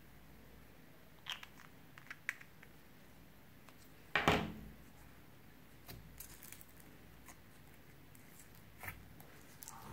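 Slime being handled and mixed: scattered small clicks and crackles, with one louder, half-second sound about four seconds in.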